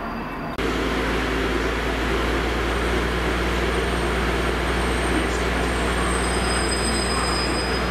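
Class 153 diesel multiple unit drawing into the platform, its diesel engine running steadily under rail noise, the sound setting in suddenly about half a second in. A faint high squeal comes in about five seconds in and fades near the end.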